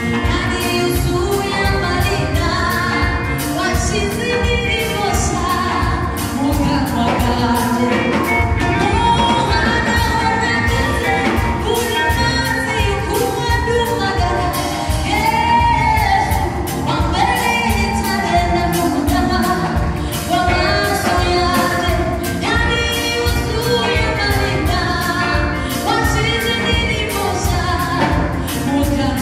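Gospel worship song: singing over a band with a steady drum beat.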